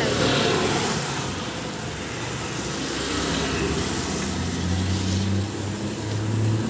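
Steady rushing noise of wind and rain. About four seconds in, the low hum of a motorcycle engine comes in as the bike approaches.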